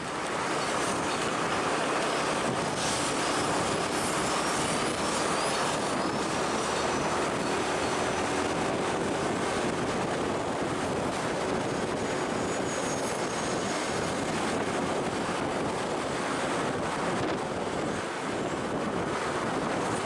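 A heavy vehicle running steadily, with a steady rush of noise and a faint engine hum. Faint high squeaks come a few seconds in.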